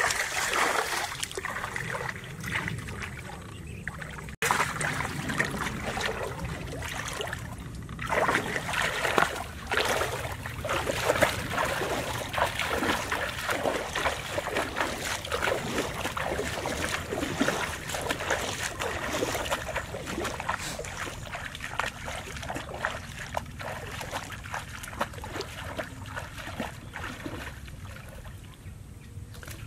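Water sloshing and splashing around a person's legs as he wades through shallow water, in an irregular run of strides, with an abrupt break about four seconds in.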